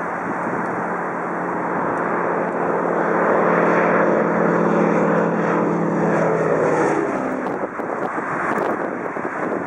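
Single radial-engine propeller plane making a low pass. Its engine drone grows louder as it approaches, then drops in pitch as it goes by. Near the end a rougher, noisier aircraft engine sound takes over.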